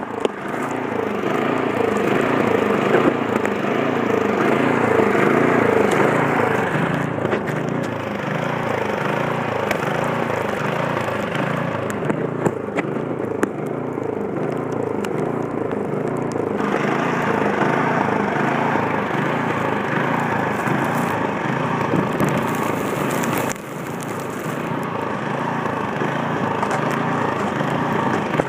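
Gasoline snowblower engine running steadily under load while clearing snow.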